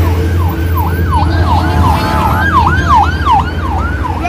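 Emergency-vehicle siren in fast yelp mode, its pitch swooping down and back up about three times a second, over a steady low rumble.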